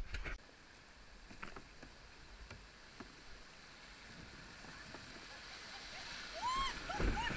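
Rushing river water as a kayak runs a small rapid, a steady hiss that grows louder. Short shouts come in near the end.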